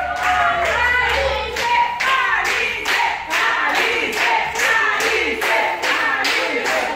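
A group of people singing together while clapping in time, about two claps a second.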